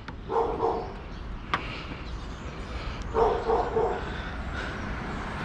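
A dog barking in two short bursts of a few barks each, about half a second in and again about three seconds in, with one sharp click between them.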